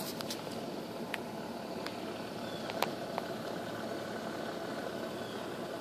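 A steady mechanical hum, like an engine running, with several sharp clicks in the first three seconds, the loudest just before the three-second mark.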